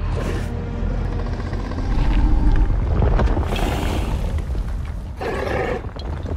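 Movie-style monster sound effects: an animated Indominus rex growling, with several roars rising out of a steady deep rumble.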